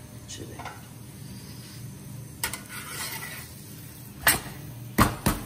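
Sharp knocks and clinks of cookware at an iron tawa griddle: one about two and a half seconds in, then three closer together near the end. A low steady hum runs underneath.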